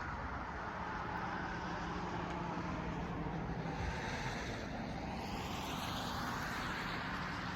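Road traffic noise: a steady hiss of cars on a nearby road, swelling as a vehicle passes past the middle and easing off near the end.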